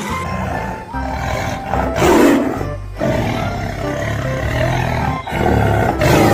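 Tiger roaring twice over background music: a loud roar about two seconds in and another near the end.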